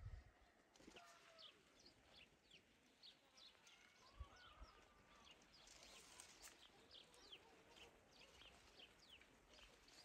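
Near silence with birds chirping faintly: many short, high chirps that fall in pitch, scattered throughout.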